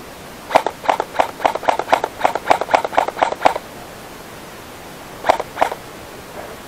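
Airsoft gun firing a quick string of about a dozen shots, roughly four a second, then two more shots a little later.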